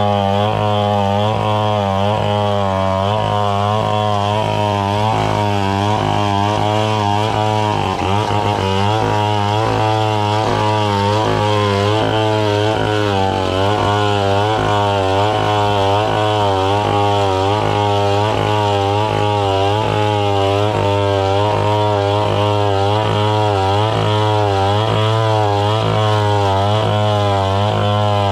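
Two-stroke chainsaw running at high revs under load, ripping lengthwise along a santol log; its note wavers steadily as the chain bites, with a brief dip in pitch about eight seconds in.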